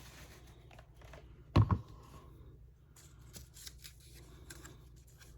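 One sharp thump of an object knocked or set down on the work table about a second and a half in, then faint small clicks and rustles of craft materials being handled.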